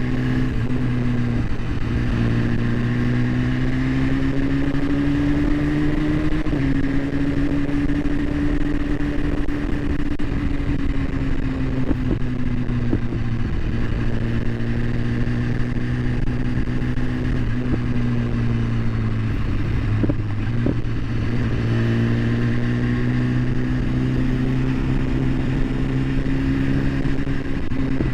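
Vehicle engine running steadily under way, a constant low hum with a higher tone that slowly drifts up and down in pitch as the engine speed changes.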